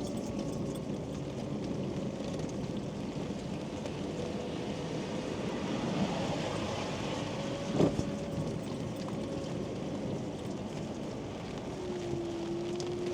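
Quingo Toura Mk2 mobility scooter running in the rain: a steady hum over the hiss of rain and wet road. A single sharp knock comes about eight seconds in.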